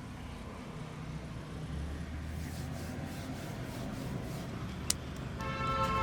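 Street traffic rumbling steadily, with a single sharp click about five seconds in. Near the end a vehicle horn starts honking.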